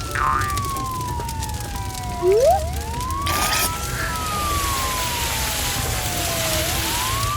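A siren wailing, each cycle a quick rise and a slow fall, repeating about every three seconds. A short burst of noise comes about halfway through, then a steady hiss alongside the siren.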